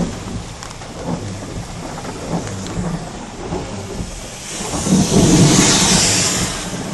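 Heavy rain falling steadily over a low rumble, swelling to a louder rush past the middle and easing off near the end.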